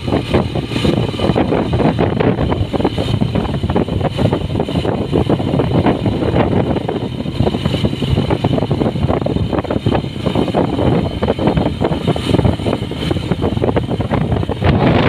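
Yamaha motorcycle engine running steadily while the bike is ridden along the road.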